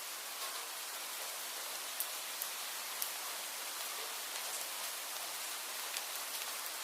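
Steady rain falling as an even hiss, with a few louder single drops ticking close by about half a second, two, three and six seconds in.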